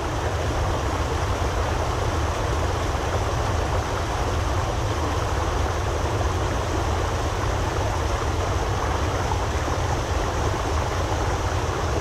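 Stream water spilling over a low temporary weir of logs and sandbags: a steady, unbroken rush of white water.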